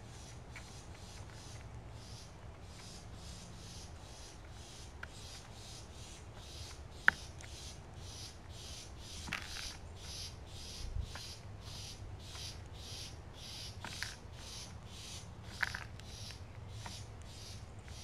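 A steady, even scratchy pulsing, about three pulses a second, runs throughout, with a few sharp taps on top, the loudest about seven seconds in, as a Carolina wren feeds on seed in a ceramic dish.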